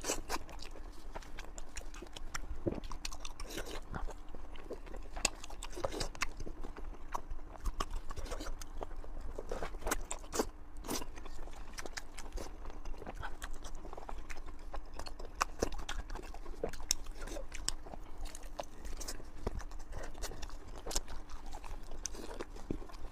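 Close-up chewing and biting into sausage, a continuous run of irregular wet clicks and smacks of the mouth.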